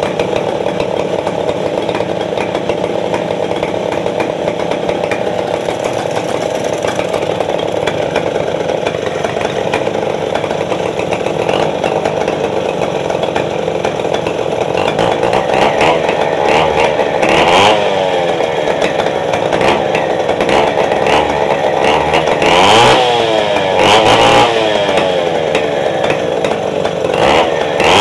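Stihl 070 two-stroke chainsaw running to warm up. It runs steadily for about the first half, then is revved up and let back down several times.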